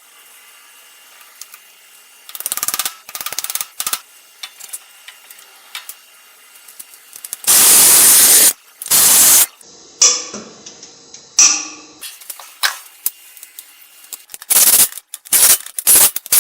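Brake job sounds: several bursts of spray hiss, the two loudest and longest back to back around the middle, with shorter hissing bursts, tool clicks and rattles before and after.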